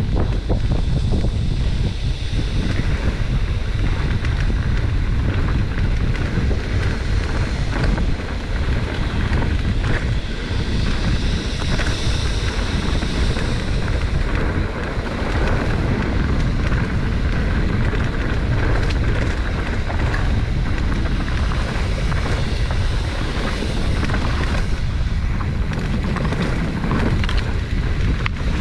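Wind buffeting the microphone during a fast mountain-bike descent on a Giant Trance X 29, with a constant rattle of small knocks from the bike and tyres over rough dirt trail.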